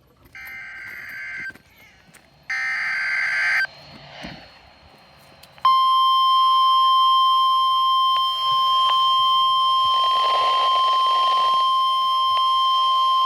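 NOAA Weather Radio alert over a Midland WR-120's speaker: two short screeching bursts of SAME digital header data, then a steady alert tone near 1 kHz that sounds for about nine seconds. The header and tone announce the severe thunderstorm watch read out right after.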